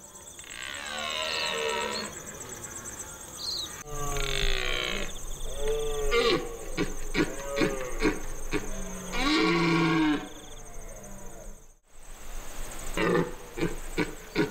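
Red deer stag roaring in the rut: a series of long bellowing roars and short pulsed grunts, with a brief break a little before the end.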